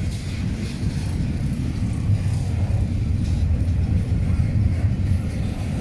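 Double-stack container freight train rolling past close by: a loud, steady low rumble of steel wheels on the rails.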